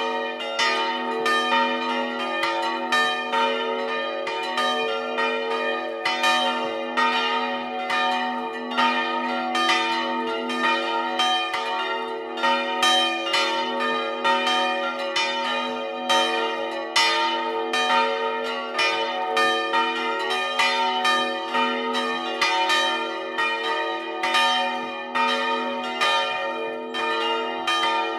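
Several swinging church bells from a four-bell ring tuned B-flat, E-flat, F and B ring together in a peal. Their strokes overlap in a dense, continuous clangour over the steady low hum of the larger bells.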